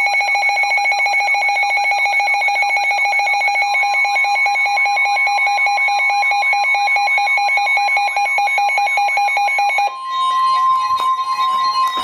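Emergency Alert System attention signal: a loud, steady electronic alert tone with a fast pulsing beat, announcing a flood warning. About ten seconds in, it switches to a single higher steady tone.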